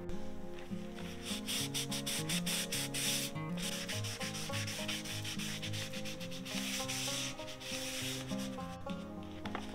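A cloth rubbed hard back and forth over a cardstock strip, quick scraping strokes that press the spine covering down flat onto the bound sheets. The strokes pause briefly about three and a half seconds in.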